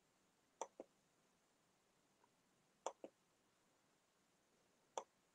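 Near silence: room tone broken by a few faint sharp clicks, a quick double click about half a second in, another about three seconds in, and a single click near the end.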